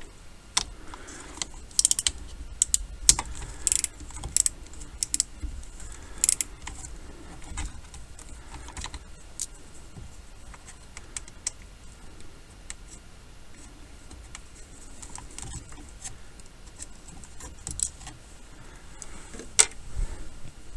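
Irregular small clicks and taps of a hand-held T20 Torx driver and loose screws against the plastic and metal parts of a steering column, as the clock spring's screws are taken out. The clicks are thickest in the first half, then come only now and then, with a sharp one near the end.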